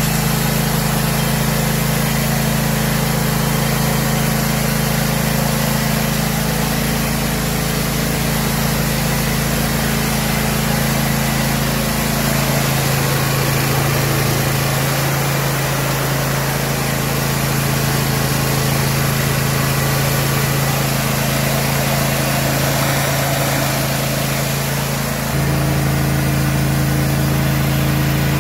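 John Deere E120 lawn tractor's V-twin engine running steadily, freshly filled with new oil and sounding normal. The engine note shifts slightly lower about halfway through and changes again near the end.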